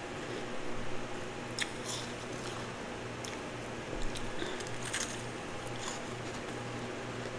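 Chewing a mouthful of twice-refrozen powdery ice, with a few crisp crunches and crackles scattered through a few seconds, over a faint steady hum.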